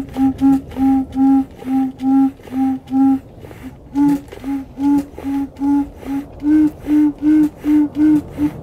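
Bellows-blown, 3D-printed HandMuse pipe instrument playing a quick run of short, separate flute-like notes, about two to three a second, with small clicks between them. The pitch steps up slightly about four seconds in and again a couple of seconds later.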